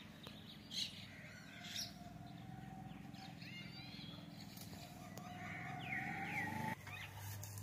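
Birds chirping in short calls several times, over a steady low hum that drops lower near the end.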